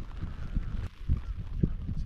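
Wind buffeting the microphone: an uneven low rumble with gusty thumps, the loudest about a second and a half in.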